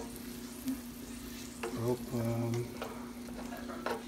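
Ground beef and tomato sauce sizzling in a nonstick pan while a plastic spoon stirs it, with a few sharp scrapes of the spoon against the pan. A steady low hum runs underneath.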